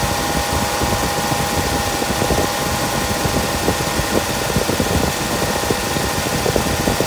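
2nd-gen Toyota 4Runner engine idling with the AC on and the compressor clutch engaged, a steady tone running over the engine noise. The compressor is cycling on and off at a steady pace, as it should, rather than rapidly.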